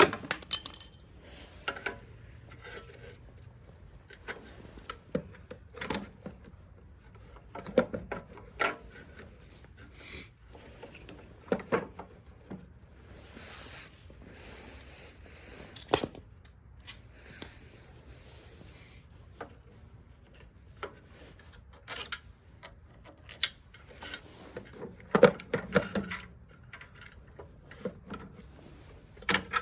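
Hands fitting a replacement electric-start push button into a snowblower: scattered clicks, knocks and rubbing of small plastic and metal parts as it is plugged in and screwed into place, with a louder cluster of knocks near the end.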